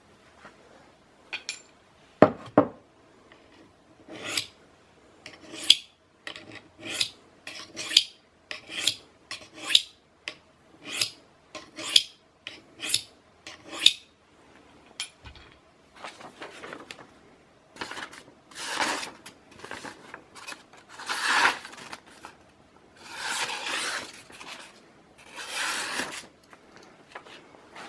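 Rubbing strokes of a reprofiled Swiss Army knife blade being polished by hand, after a single knock about two seconds in. The strokes come short and regular, about one a second, then turn into a few longer, louder strokes near the end.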